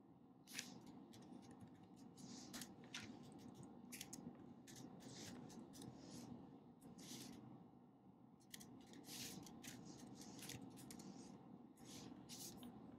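Faint, irregular short scratchy strokes from hands working at a desk, over a low steady room hum.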